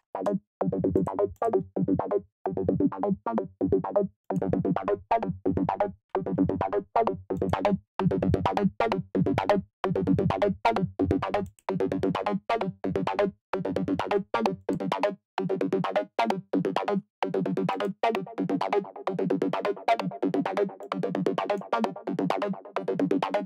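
Sequenced techno synth line from Ableton's Wavetable synthesizer: short, choppy pitched notes in a fast repeating pattern, run through overdrive, echo and reverb. About fifteen seconds in, the bass under the notes drops away and the sound turns thinner.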